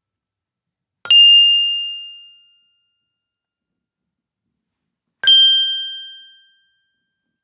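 Two high bell dings about four seconds apart, each struck sharply and ringing out over about a second and a half; the second is pitched slightly higher.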